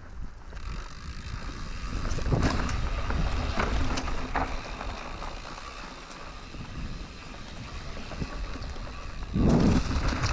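Canyon Neuron mountain bike riding downhill on grass and dirt: wind buffeting the microphone over the rolling tyres, with a few sharp clicks and rattles from the bike. It gets louder about nine seconds in as the speed picks up.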